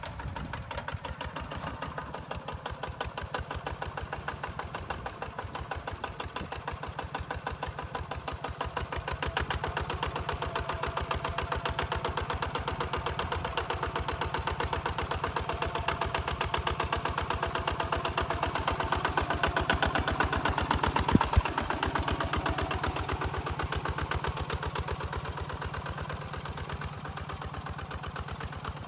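Single-cylinder diesel engine of a two-wheel walking tractor chugging steadily under load as it pulls a plough through dry paddy soil. It grows louder from about ten seconds in and eases off near the end, with one sharp knock a little past the middle.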